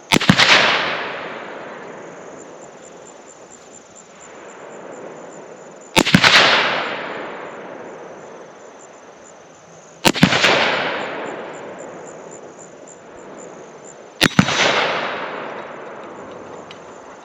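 Four rifle shots, spaced about four to six seconds apart, each followed by a long echo that dies away over a couple of seconds.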